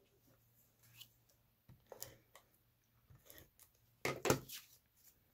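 Faint rustles, taps and scrapes of cardstock squares being handled and slid across a craft mat, with a louder cluster of paper sounds about four seconds in.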